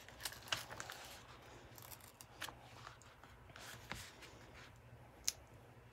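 Faint crackles and scattered sharp clicks of a rolled diamond-painting canvas and its protective paper being handled and pressed flat on a wooden tabletop, with the sharpest click about five seconds in.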